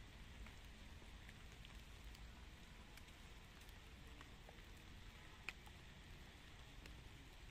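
Near silence with faint light rain: a soft hiss and scattered drip ticks, the sharpest about five and a half seconds in.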